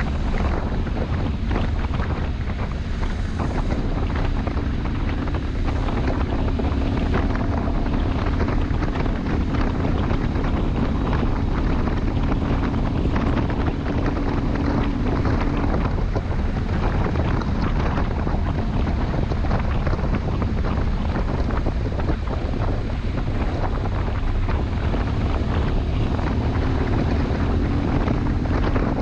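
Wind buffeting the microphone over the BMW R1150 GS Adventure's boxer twin engine running steadily as the motorcycle rides along. The engine note drops a little past halfway and climbs again near the end.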